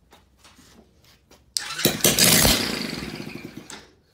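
A 110cc Chinese ATV's single-cylinder four-stroke engine starts on its electric starter about one and a half seconds in, firing on fuel dribbled down the intake. It runs briefly, fades and dies out after about two seconds, showing the engine has spark and compression. A few faint clicks come before it.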